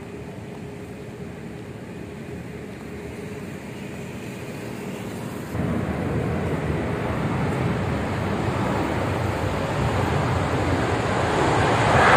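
Aircraft jet engines roaring during a takeoff run. The roar jumps up about halfway through and keeps growing louder to the end.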